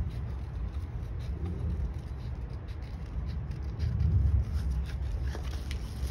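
A steady low rumble that swells about four seconds in, with faint scattered snips of scissors cutting paper.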